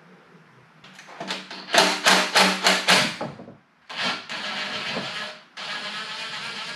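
Hand wrench working the transmission pan bolts on a car's underside: a run of quick, loud clicking strokes, about four or five a second for two seconds, then a steadier rubbing noise.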